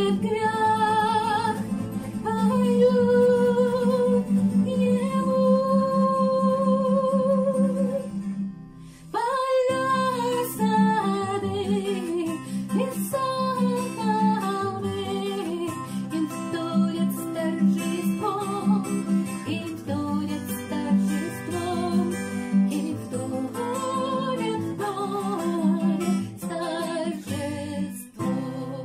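A woman singing a song to guitar accompaniment, holding long notes with vibrato. The music breaks off briefly about eight seconds in, then the singing resumes.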